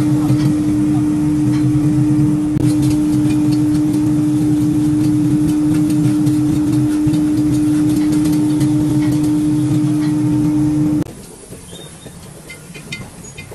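A machine's motor running with a loud, steady hum, stopping abruptly about eleven seconds in; a few light clicks and knocks follow.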